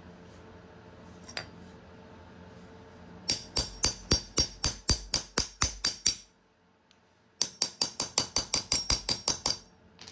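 Hammer tapping on a 17 mm socket in quick metallic strikes, driving a new rubber boot into a brake caliper bracket. About a dozen evenly spaced taps, a pause of about a second, then a second, faster run of taps.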